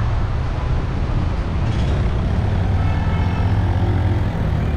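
Busy road traffic: a steady rumble of cars, buses and trucks running past.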